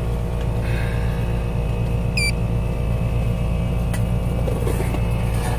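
A 3-ton Trane R-410A air-conditioning condenser is running with a steady low hum from its compressor and fan. A brief high chirp comes about two seconds in.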